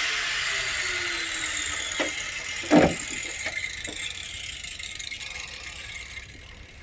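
A power tool's motor winding down after being switched off, its hiss and whine slowly falling in pitch and fading, with two sharp knocks about two and three seconds in.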